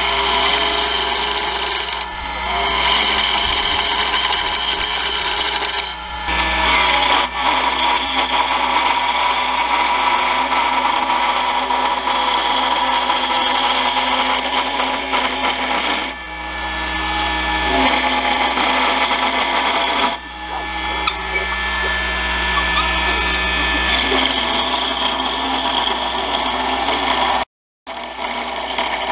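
Turning tools cutting a long aromatic cedar spindle spinning on a JET JWL-1221VS wood lathe: a continuous rough scraping hiss with steady tones through it. The cut eases off briefly a few times and drops out suddenly near the end.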